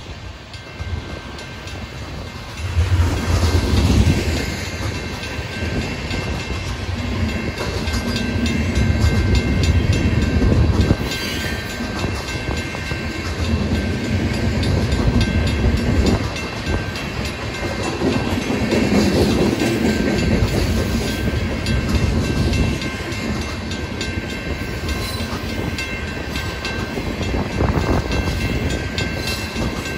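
Freight train tank cars rolling past: a steady rumble of steel wheels on the rails with a clickety-clack from the trucks, swelling and easing as the cars go by.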